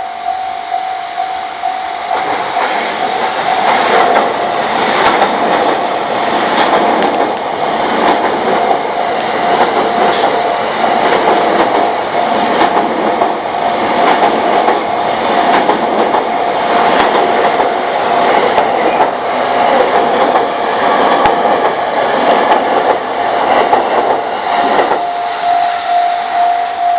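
A JR East train passing over a level crossing, its wheels clattering in a steady rhythm over the rail joints, while the crossing's warning bell keeps ringing with a steady pulsing tone. The train noise starts about two seconds in and dies away near the end, leaving the bell.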